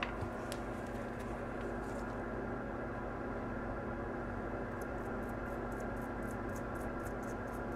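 Toothbrush scrubbing a phone flex cable with alcohol: a run of quick, light brushing strokes, about five a second, from about halfway through, over a steady electrical hum.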